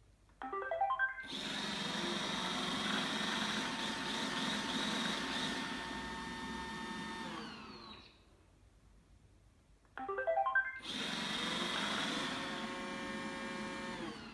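Roomba 866 robot vacuum plays its short tune of stepped notes, runs its vacuum and brush motors for about six seconds, then winds down and stops; after a pause of about two seconds it plays the tune and starts up again, winding down near the end. This repeated start-and-stop is the fault the owner calls very strange behaviour.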